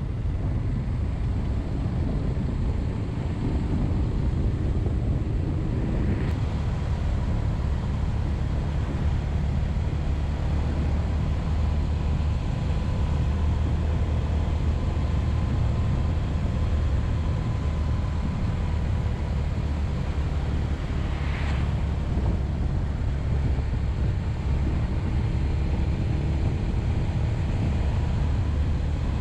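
A Suzuki Grasstracker Big Boy's single-cylinder four-stroke engine running steadily at cruising speed, with road noise, heard from a camera mounted on the moving motorcycle. Two brief higher sounds stand out, about six seconds in and about twenty-one seconds in.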